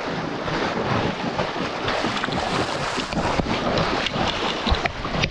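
Stream water rushing and splashing close to the microphone as an angler wades after a hooked fish, with wind buffeting the microphone.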